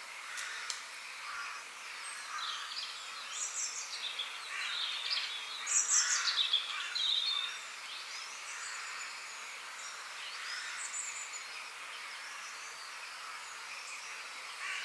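Forest ambience of several birds calling: repeated high chirps and quick falling whistles over a steady hiss, busiest and loudest about halfway through.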